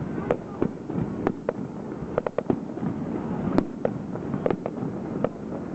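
Aerial firework shells bursting in a rapid, irregular series of sharp bangs, about fifteen of them, with a quick cluster near the middle, over a steady background noise.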